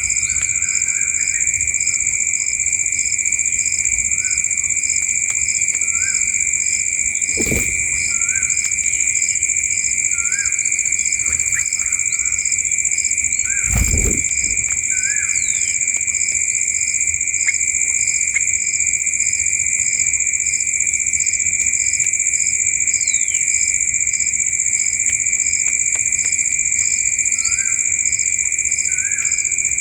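Crickets and other insects keep up a steady high drone with a regular pulsing chirp, while short rising bird chirps come now and then. Two dull thumps sound, about a quarter and half of the way through.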